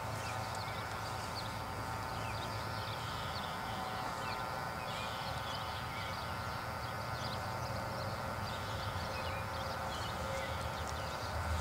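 Amtrak GE Genesis diesel locomotive approaching at a distance: a steady low engine drone with several steady higher tones, growing slightly louder toward the end. Small high chirps sound over it.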